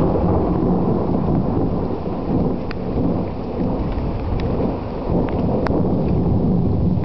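Deep, continuous rumbling noise that swells up just before the start and holds fairly steady, with a few faint ticks.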